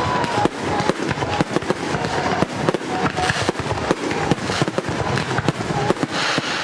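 Aerial fireworks display: a dense, unbroken barrage of shell bursts and crackling, many bangs a second with no pause.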